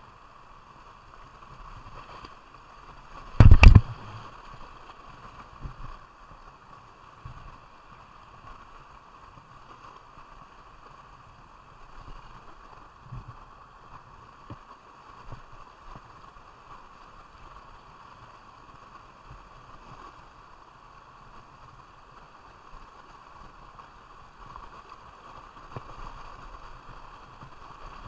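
Kayak on moving river water: a steady rush of water with small knocks and splashes from the paddle and hull, and one loud thump about three and a half seconds in.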